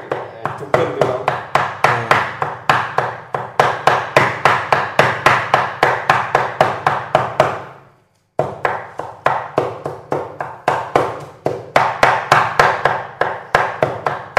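Cleaver chopping cooked meat on a chopping board: a fast, steady rhythm of about four knocks a second, which breaks off for a moment about eight seconds in and then picks up again.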